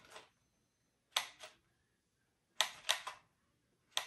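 A handful of short, sharp clicks and taps at uneven spacing, some in quick pairs: handling noise.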